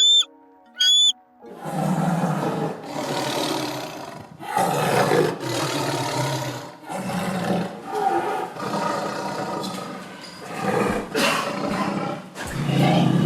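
A big cat roaring: a long series of rough, low roars, each about a second long, repeated one after another. It is preceded by two short, high chirps in the first second.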